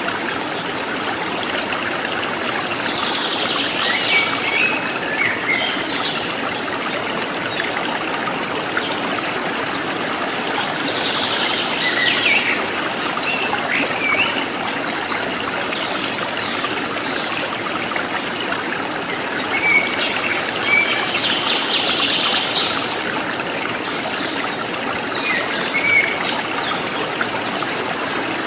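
Stream water babbling and trickling steadily, with wild birds calling now and then over it: clusters of high chirps and short whistles, four times.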